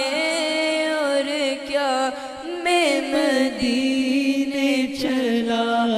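A boy singing a naat, an Urdu-Punjabi devotional song in praise of the Prophet, solo and unaccompanied. He draws out one long ornamented melisma with a wavering vibrato, stepping down in pitch a few times.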